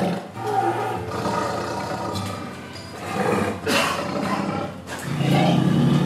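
Tiger roaring in three bursts, early, mid-way and near the end, over background music.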